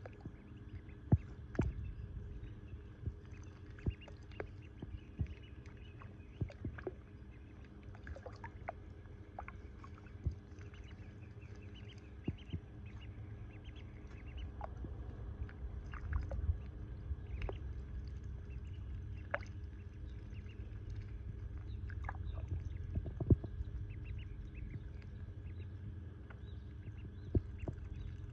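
Ducklings dabbling and paddling in shallow muddy water: small splashes and sharp bill clicks at irregular moments, the loudest about a second in and near 23 seconds, over a low steady rumble.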